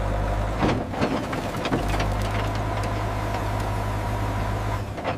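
Heavy machinery running with a steady low hum, with several sharp metallic knocks in the first two seconds and a few more later.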